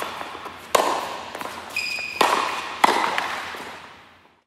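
Intro logo sting: three sharp hits, each with a long echoing tail, and a brief high ping between the first two. The sound fades out just before the end.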